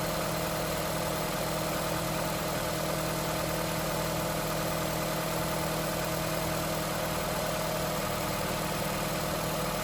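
Nissan Sentra's four-cylinder engine idling steadily and evenly. It runs smoothly now that the misfire tune-up is done and the vacuum leak from an unplugged hose has been fixed.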